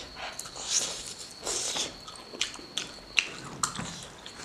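Close-up eating sounds of a person biting and chewing pork with rice: wet, smacking mouth noises, with several sharp clicks in the second half.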